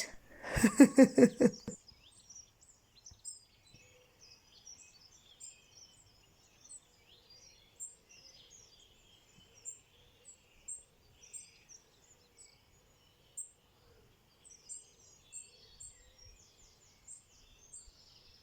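Spring birds in a garden singing and chirping: a chorus of many short, fairly faint high twitters and calls from several birds, some repeating a thin high note.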